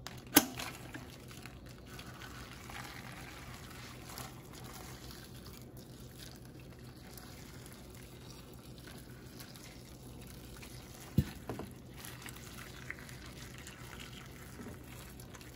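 Hot water pouring from a kettle onto dried chiles in a plastic tub, a steady quiet trickle and splash. A sharp click about half a second in and a knock about eleven seconds in.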